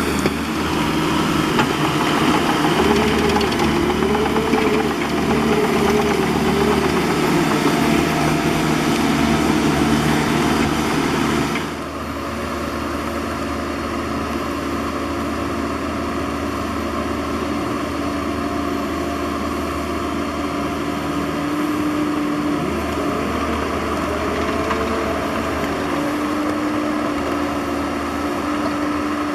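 Bobcat E50 mini excavator's diesel engine running under load, its pitch rising and falling as the hydraulics work. About twelve seconds in the sound drops suddenly and settles to a steadier, slightly quieter note.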